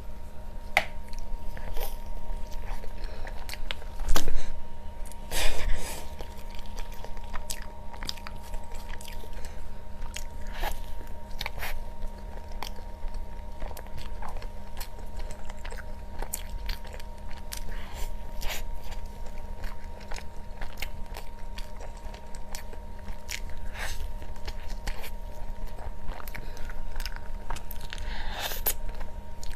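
A person biting into and chewing crunchy food close to the microphone: a steady run of short, crisp crunches, with two louder bites about four and five and a half seconds in. A faint steady hum runs underneath.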